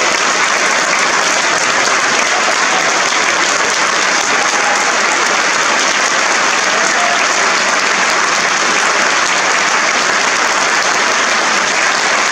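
Theatre audience applauding, a dense, steady clapping that does not let up.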